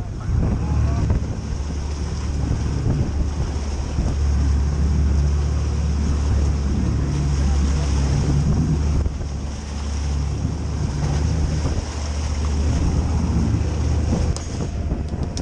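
Twin Yamaha 115 outboard motors running steadily at speed as a low rumble, with wind buffeting the microphone and water rushing past the hull.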